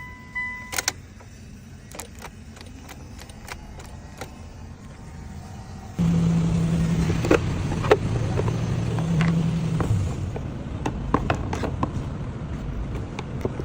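A short electronic beep and scattered light clicks, then about six seconds in a car engine starts suddenly and runs with a steady low hum, with more clicks over it.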